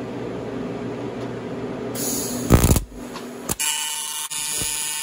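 Steady fan hum, then an AC TIG welding arc on the aluminium chainsaw cylinder. A hissing high-frequency start begins about two seconds in, with a loud crackle as the arc strikes. After a brief drop, the steady buzz of the AC arc runs from about three and a half seconds in.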